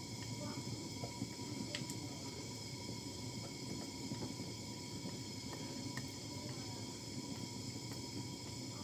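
Steady background hiss and hum, with a few faint ticks about two seconds in and again about six seconds in.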